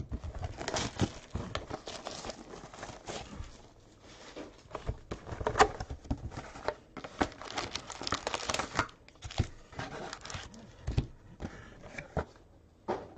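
Foil wrapper of a trading-card pack crinkling and tearing as the pack is opened, with the cards inside rustling and clicking as they are handled, in irregular bursts.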